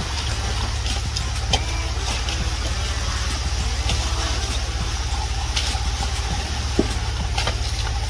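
Concrete pump running with a steady low engine drone while concrete feeds through the hose into footing forms, with a couple of short, sharp knocks.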